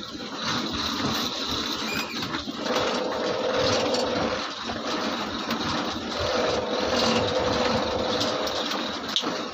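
Diesel engine of an early BS4-era Ashok Leyland lorry running under way, heard from inside the cab. Its note grows louder twice, about three seconds in and again about six seconds in.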